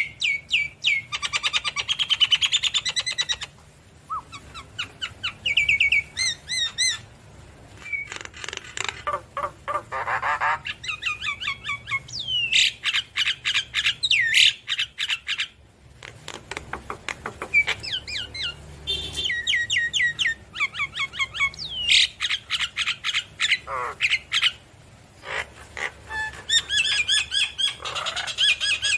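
Javan myna singing: bouts of fast, harsh chattering notes mixed with whistles, a few seconds each, broken by short pauses.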